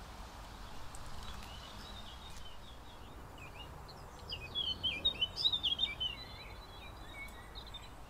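A small songbird singing a quick, jumbled run of high chirping notes, loudest about halfway through, over steady background noise.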